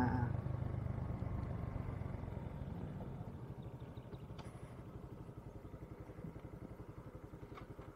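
Suzuki Gixxer motorcycle's single-cylinder engine running as the bike rides off, its pulsing beat gradually growing quieter.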